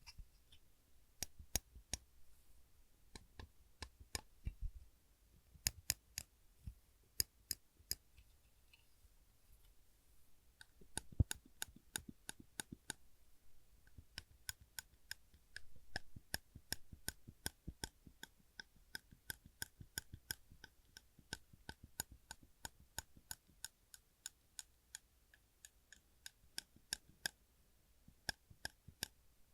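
A large silver metal clip being pressed and released over and over, clicking sharply. The clicks come irregularly at first, then settle after about ten seconds into a steady run of about three a second.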